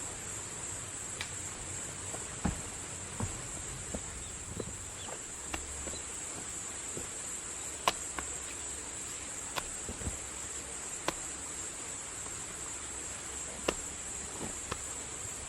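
Steady, high-pitched chirring of an insect chorus, crickets or similar, with scattered sharp clicks and knocks.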